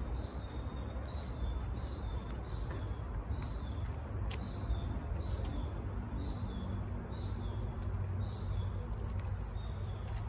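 Outdoor woodland ambience: a short, slightly falling high chirp repeats about one and a half times a second over a steady high-pitched insect drone and a steady low rumble.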